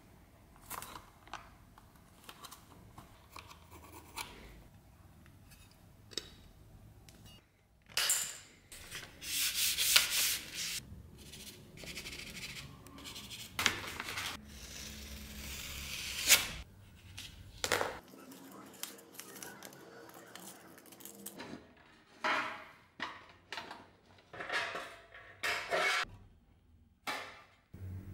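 Hands handling a paper template and a thin metal fitting against a leather-covered scabbard: rubbing and paper rustling with scattered light clicks, and two louder stretches of rustling. Near the end come sharper clicks as tin snips cut thin sheet metal.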